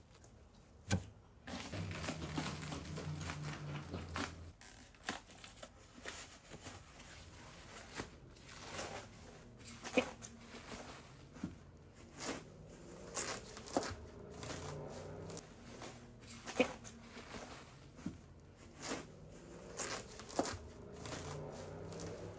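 Packaging crinkling and tearing as a boxed truck front bumper is unwrapped, with many scattered sharp clicks and knocks. A low hum sounds briefly about two seconds in.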